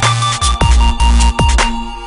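Electronic dance music with heavy bass and a strong beat, including bass hits that drop sharply in pitch. The upper range thins out near the end.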